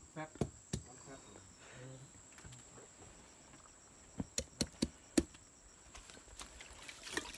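Scattered light clicks and knocks, two near the start and a quick run of four about four to five seconds in, over a faint steady high-pitched tone.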